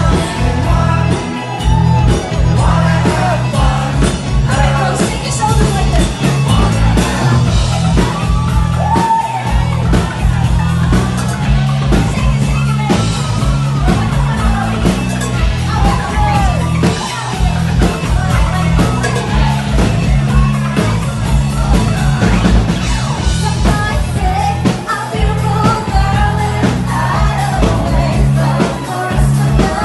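Loud 1980s-style rock music playing over a club sound system with a steady beat, with a woman singing into a microphone and a crowd yelling and singing along.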